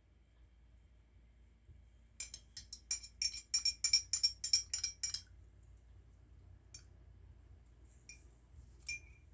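Hard objects clinking against a glass jar as a hand rummages in it: a quick run of ringing clinks for about three seconds, then three single clinks near the end.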